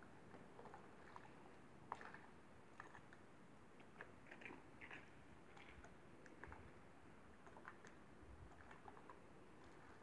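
Faint, irregular crunching clicks of a white-tailed deer chewing as it feeds, over near silence.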